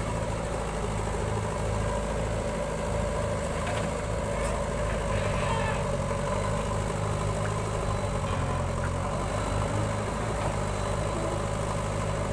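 Diesel engines running steadily with a low, even hum: a JCB backhoe loader working its rear digging arm while a farm tractor idles.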